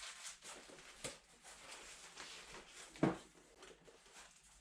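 Small spare parts and their packaging being handled on a bench: quiet rustling, a light knock about a second in and a louder single knock about three seconds in as a part is set down.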